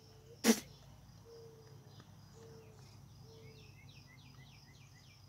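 Birds singing outdoors: four low, even notes about a second apart, then a quick run of descending chirps near the end, over a faint high insect chirping. A single sharp clink about half a second in.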